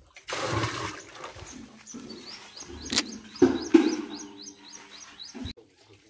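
Water splashing from a rubber well bucket as it is hauled up out of a nearly dry concrete well, then a couple of sharp knocks. Small birds chirp through the middle of it with short, quick repeated calls.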